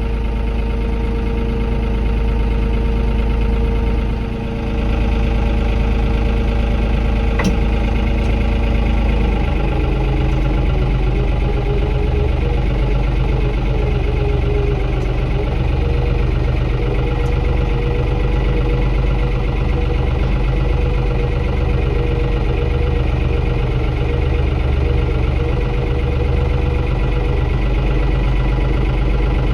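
Farm tractor engine running steadily at low speed under load while slowly pulling a well pump and its line up out of the casing. The engine note changes about nine and a half seconds in, with a single click a couple of seconds before.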